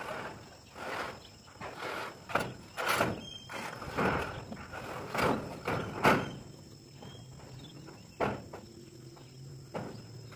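Footsteps and body weight on corrugated steel roof sheets: irregular thumps and metallic flexing knocks, heaviest in the first six seconds, then a few lighter knocks. Insects whine faintly and steadily in the background.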